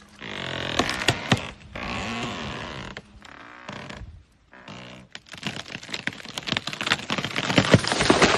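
A tree creaking and cracking as an elephant pushes it over, with a dense run of snapping wood that is loudest near the end as the trunk gives way.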